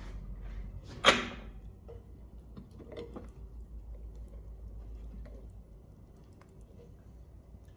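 Wood fire in a small cast-iron stove burning harder with its air supply opened: a steady low draught rumble with scattered crackles, and one loud sharp crack about a second in. The rumble eases after about six seconds.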